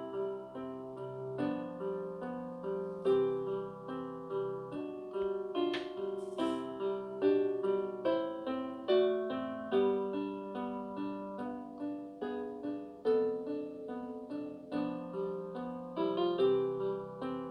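Background music: a keyboard melody of piano-like notes, struck a few times a second, each note fading after its attack.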